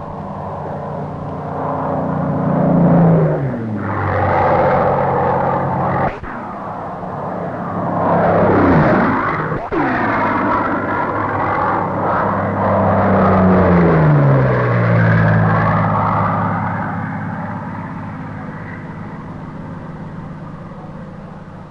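Curtiss Tomahawk fighters' Allison V-12 engines passing low several times, the engine pitch dropping steeply as each one goes by.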